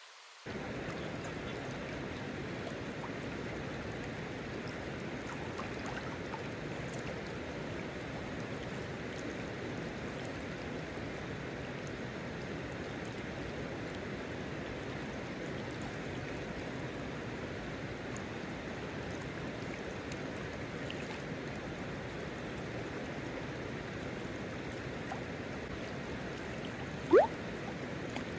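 Steady rush of a shallow river flowing over stones. Near the end there is one brief, loud whistle that rises sharply in pitch.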